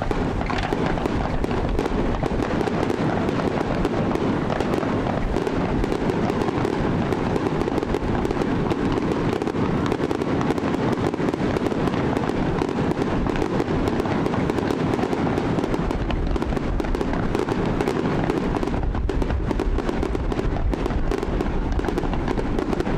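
Aerial fireworks bursting in a dense, continuous barrage: many sharp cracks and pops overlapping without a pause.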